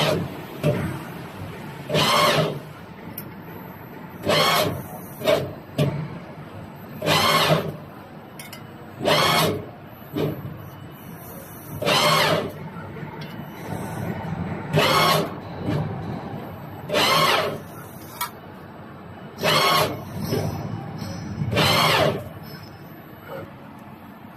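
CNC press brake cycling through repeated bends: about nine short loud strokes, each lasting about half a second, come every two to three seconds over a steady machine hum.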